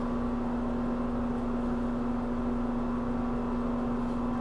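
Steady machine hum with one strong low tone and an even background whir, unchanging throughout.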